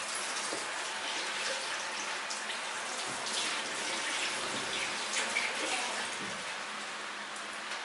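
Tap water running steadily, with uneven splashing.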